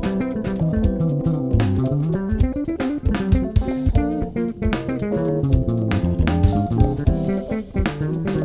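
Live band playing an instrumental medley of Abkhaz melodies: an electric bass and keyboard play fast runs that sweep down and back up, over a drum kit.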